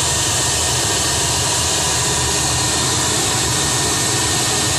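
Cotton trash analyser running: its fan and opening rollers make a loud, steady rushing noise with a low hum as raw cotton is drawn through the chamber and the trash is separated out.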